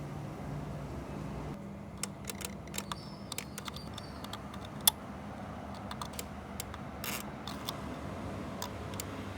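Irregular small clicks and taps of small hard parts being handled, most likely the diecast model car and its miniature tools, starting about a second and a half in, with one sharper click about halfway through, over a steady low hum.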